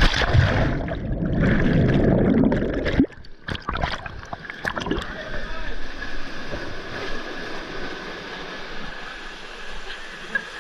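Rushing water and splashing. It is loud for about three seconds, cuts down suddenly, and carries on as a steadier hiss, with a few knocks just after the drop.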